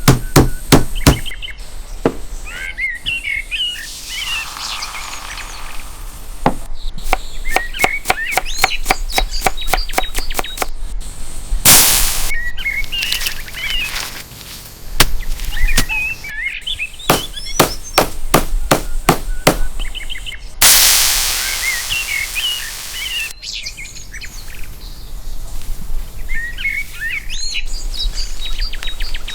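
Birds chirping throughout, with several runs of quick, evenly spaced knocks, about four a second, typical of chopping on a board. Two short bursts of hissing noise come in, the longer one about two thirds of the way through.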